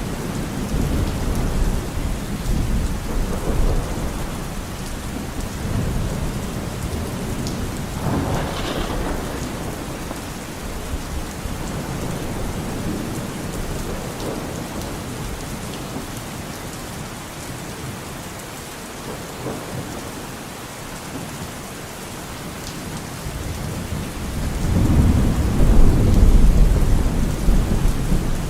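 Steady heavy rain falling on a forest, with low rolling thunder rumbling under it. The thunder swells a little about a third of the way in and most strongly near the end.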